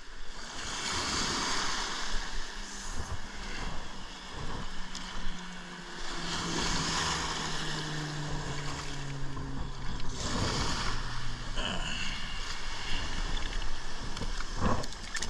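Small surf waves breaking and washing through the shallows in swells that rise and fall every few seconds, with wind on the microphone. A faint low hum slowly drops in pitch through the middle.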